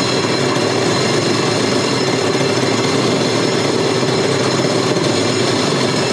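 The 1990 Sea-Doo SP's Rotax 587 two-stroke twin running steadily on carb cleaner sprayed into the carburettor intake, on its first start attempt.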